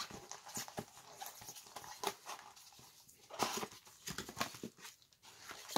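Cardboard trading-card box being handled and opened by gloved hands: irregular scrapes, taps and short rustles of cardboard, the loudest a little after three seconds in.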